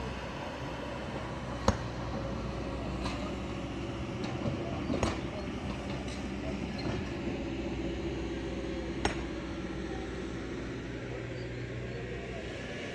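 Kobelco excavator's diesel engine running steadily, with a few sharp clinks of rock knocking on rock and a short clatter of stones near the middle.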